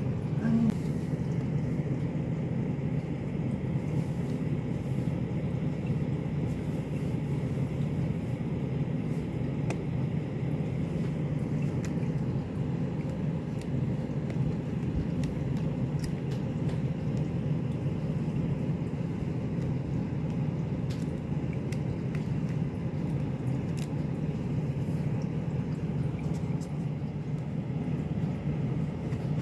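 Steady low rumbling background hum, with a few faint taps and clicks from hands handling a clear acrylic stamping block and card.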